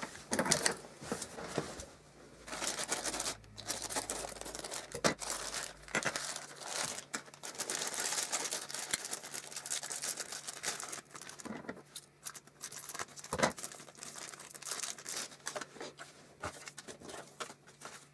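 Tissue paper crinkling and rustling as it is unwrapped from small toy pieces, with scattered sharp clicks from handling the pieces.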